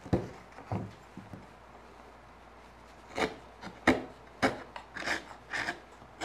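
A hand chisel paring the end of a pine tenon in short scraping strokes, wood fibres shaving off. Three strokes come in the first second and a half, then after a pause about six more in quick succession.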